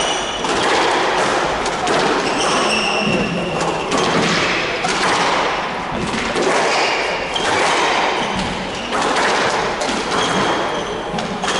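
Squash rally: the ball thudding against racket strings and court walls in a run of sharp impacts, with short high squeaks from shoes on the wooden court floor.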